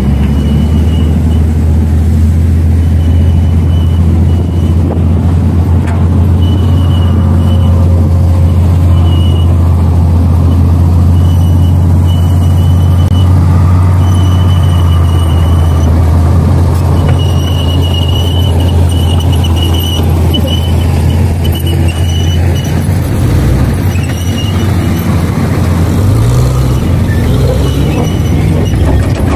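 Heavy earthmoving machinery's diesel engine running steadily and loud, with short high-pitched squeals repeating every second or two. The engine note shifts and rises briefly near the end.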